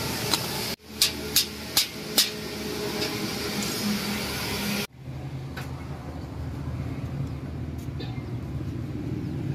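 Four sharp metallic clicks about a second in, evenly spaced, from pliers working steel binding wire on rebar crossings. Later comes a steady low hum of background noise.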